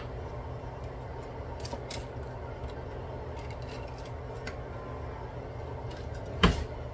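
Steady low hum with a few faint ticks, and one sharp knock about six and a half seconds in.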